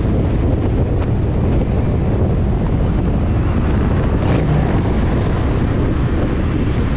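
Motorcycle engine running at steady road speed, mixed with wind blowing across the microphone. The level stays even throughout.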